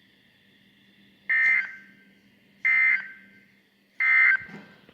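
Emergency Alert System end-of-message data bursts from a weather radio: three identical short digital squawks, each about a third of a second long and about 1.3 seconds apart, signalling the end of a NOAA Weather Radio severe thunderstorm warning.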